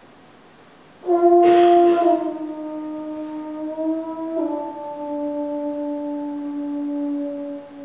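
French horn entering loudly about a second in and holding long sustained notes, stepping down in pitch twice, with a short rush of noise just after the entry.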